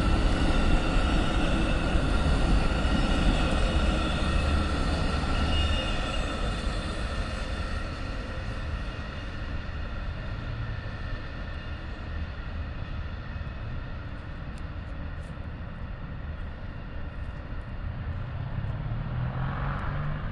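Amtrak Auto Train auto-carrier cars rolling past on the rails: a steady rumble with faint high steady tones that fades from about halfway through as the last cars draw away. A low hum rises near the end.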